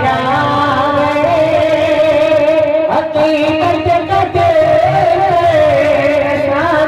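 Man singing a naat (Islamic devotional song) into a microphone, holding one long wavering note from about a second in until near the end, where he moves into new phrases.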